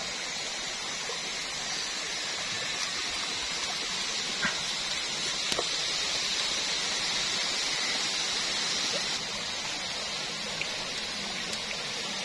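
A steady hiss with a few faint scattered clicks.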